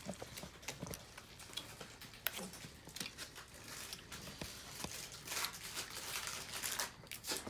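Eating sounds at the table: scattered sharp clicks, crinkling and crunching as blue crab shells are cracked and picked apart, busiest in the second half.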